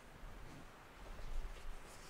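Quiet room tone with a few faint, small handling sounds.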